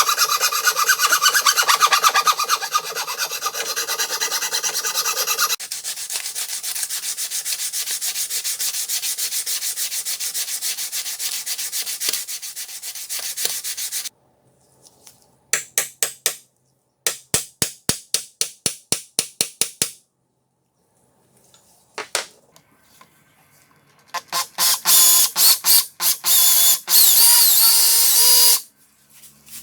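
Hand filing on the old screwdriver: rapid, continuous scraping strokes for the first half, then shorter strokes spaced about three a second with pauses between. Near the end come louder separate bursts carrying a pitched whine.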